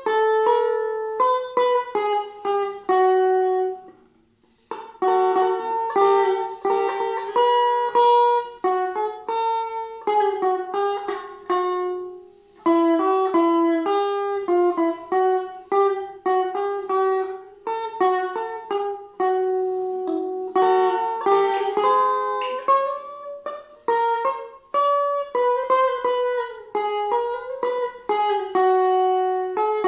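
Stratocaster-style electric guitar playing a melody of plucked notes, with a short break about four seconds in.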